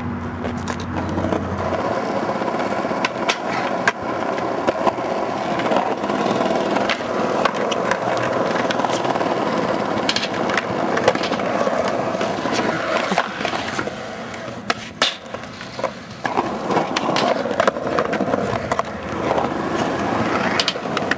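Skateboard wheels rolling on concrete, with sharp clacks of the board slapping the ground every few seconds.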